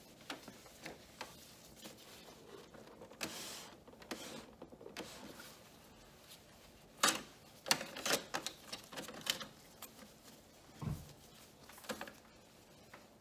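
A cloth rubbing and wiping over the plastic body and paper tray of an all-in-one printer, with scattered plastic clicks and taps. A cluster of sharp clicks and knocks comes in the middle, and a single dull thump near the end.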